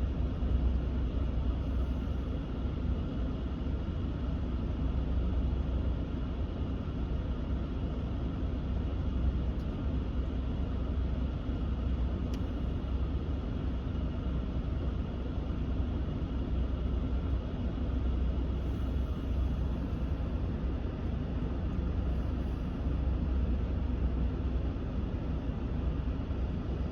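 Steady rush of air from a 2019 Ram 1500's dashboard HVAC vents with the blower fan running, over a low, even rumble from inside the cab.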